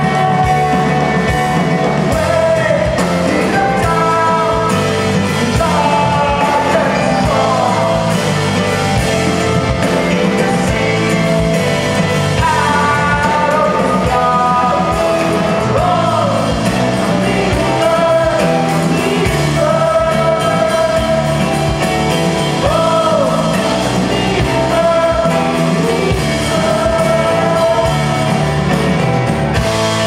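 Live rock band playing a song: a sung lead vocal over acoustic and electric guitars, keyboard and drum kit.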